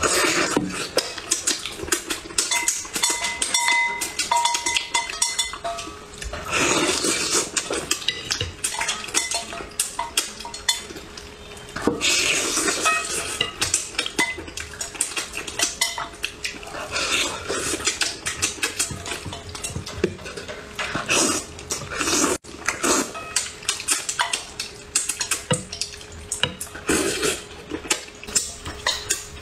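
Eating utensils clinking, tapping and scraping against dishware over and over, in an irregular run of small clinks, some briefly ringing, as braised fish is picked at and eaten.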